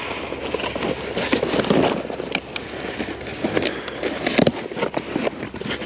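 Scrap being rummaged by hand and pulled from a pile: irregular clattering, knocking and crackly rustling.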